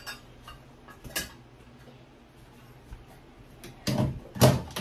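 Small metal clicks and clinks as a shower hose's threaded nut is tightened onto a shower head fitting. There are a few louder knocks near the end as the handheld shower head is handled at its mount.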